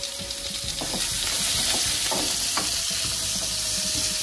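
Sliced carrot, spring onion and capsicum sizzling steadily in butter in a nonstick pan, stirred with a wooden spatula that scrapes the pan now and then.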